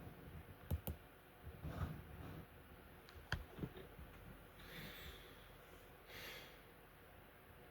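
Faint close-up handling sounds: a few soft clicks and knocks in the first half, then two soft breath-like swells of noise, over a low background hiss.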